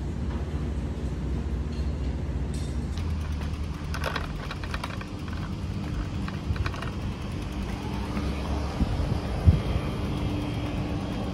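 A steady low mechanical hum and rumble, with a few scattered light taps and clicks in the second half.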